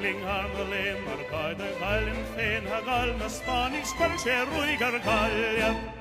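Film score music: a high, wavering melody with strong vibrato over low held bass notes.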